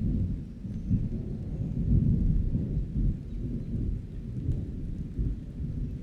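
Rolling thunder rumbling over steady rain, the deep rumble swelling to its loudest about two seconds in and then easing off.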